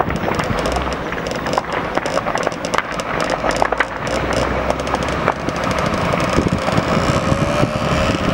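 Rapid, irregular sharp claps from a crowd applauding, over the low steady running of passing Iveco fire engines' diesel engines.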